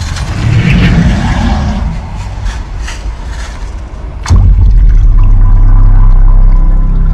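Dolby Atmos demo trailer soundtrack playing: quieter rustling effects, then about four seconds in a sharp crack followed by a loud, steady deep rumble as the trailer builds to its logo.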